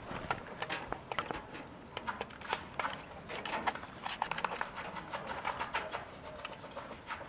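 Several quail dustbathing in a plastic tray of sand: an irregular patter of scratching, pecking and flicked sand on the plastic, busiest in the middle.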